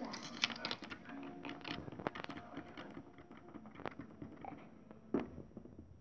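Light, irregular clicks and taps of a small plastic toy figure being handled and tapped against a plastic toy laptop and desk, a few sharper knocks among them.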